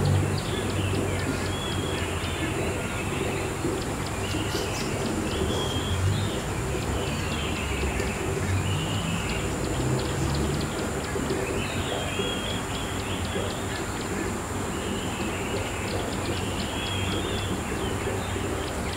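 Short chirping bird calls, repeating every second or two, over a steady hiss and low hum.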